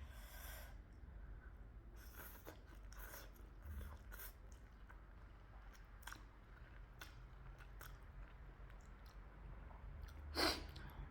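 Close-miked chewing of chilli momo dumplings: soft, irregular wet clicks and smacks of the mouth, with one louder smack about ten seconds in.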